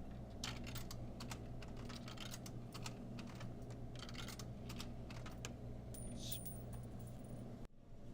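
Keys clicking in quick, irregular taps, like typing, over a steady low electrical hum. A brief faint high-pitched tone sounds near the end.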